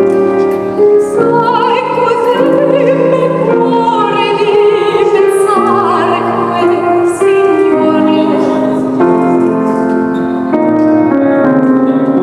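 Soprano singing an opera aria with piano accompaniment; the voice drops out about seven seconds in and the piano carries on alone.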